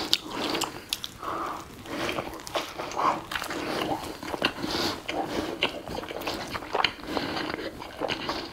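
Chewing and biting through a mouthful of ground-meat pizza, with many short wet mouth clicks and smacks.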